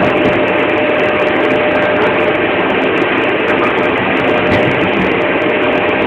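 Vacuum cleaner running, a loud steady rushing noise, with a thin whine that fades out about two seconds in.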